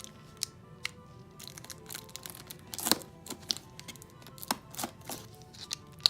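A cardboard product box being handled and opened: a series of sharp clicks, taps and short crinkling, tearing scrapes, the loudest about three seconds in and at the very end, over light background music.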